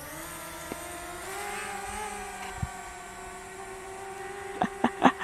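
Quadcopter drone's propellers buzzing steadily in flight, a hum that sounds like an irritating fly or a whole wasp nest; its pitch rises slightly and settles. A few short knocks near the end.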